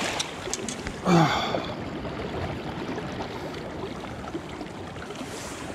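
A short falling voice sound about a second in, then a steady rushing noise of wind.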